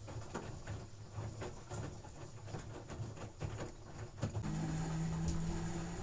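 LG AI DD F4WV309S4E front-loading washing machine starting a cycle: irregular soft mechanical pulses for the first few seconds, then a click about four and a half seconds in, followed by a steady hum.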